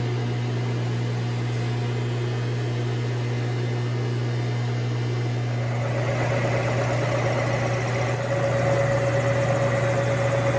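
Rotary phase converter running just after start-up: a steady electrical hum, with a fainter higher tone joining about halfway through and the level rising slightly near the end.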